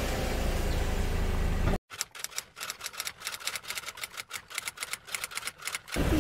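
Steady outdoor background noise, then an abrupt cut to a run of quick, uneven key clicks, a typing sound effect at about eight clicks a second. The clicks stop suddenly near the end.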